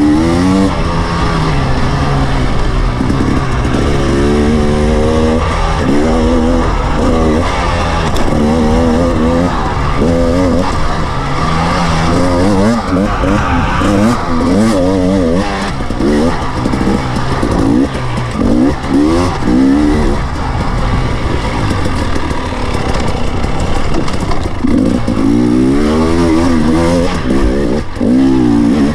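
KTM 300 EXC TPI two-stroke enduro motorcycle engine, heard close up from on board, revving hard in repeated surges. Its pitch climbs with each burst of throttle and falls back between them as the bike is ridden over a dirt course.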